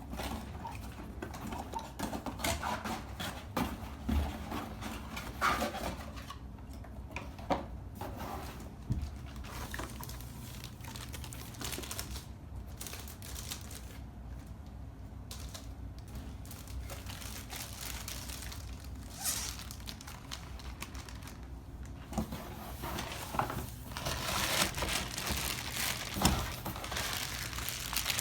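Laptop shipping box and its packaging being handled and opened: scattered knocks and clicks with rustling, turning into denser crinkling of packaging near the end.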